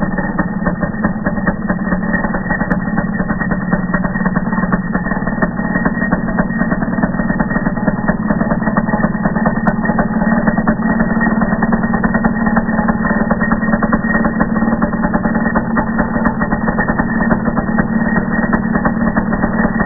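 Traxxas Revo 3.3's TRX 3.3 two-stroke nitro engine idling steadily with a rapid, even firing beat.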